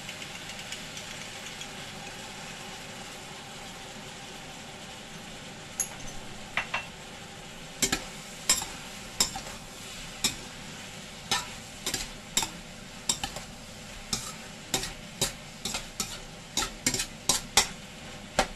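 Meat sizzling in a stainless steel wok. From about six seconds in, a metal spatula stirs it and knocks against the wok's sides in irregular sharp clanks, about two a second, coming faster near the end.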